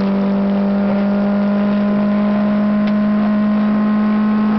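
Citroën AX GTi rally car's 1.4-litre four-cylinder engine running hard at steady revs, heard from inside the cabin. The pitch holds level throughout.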